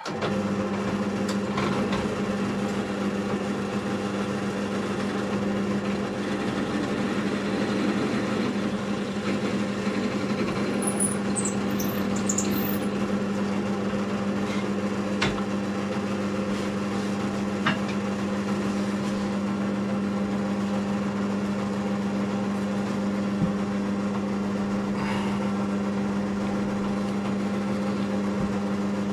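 Electric motor of a knifemaking shop machine switched on and running steadily with an even hum, a few light clicks and brief high squeaks over it as metal is worked.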